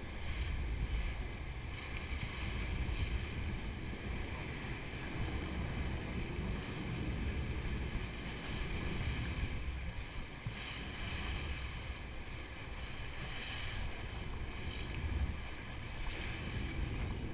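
Sportfishing boat under way: a steady low rumble with the rush of the churning wake and wind buffeting the microphone.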